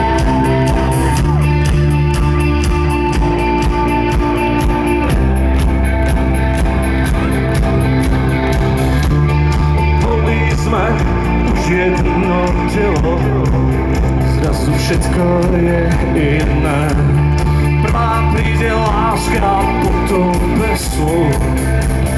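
Live rock band playing an instrumental passage of the song through the PA: electric guitars, bass and drums. About halfway through, a lead melody enters that bends and wavers in pitch.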